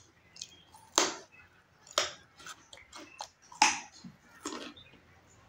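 Close-miked eating sounds: wet chewing and lip smacks of someone eating rice and chicken curry, in a run of short, sharp smacks, the loudest about one, two and three and a half seconds in.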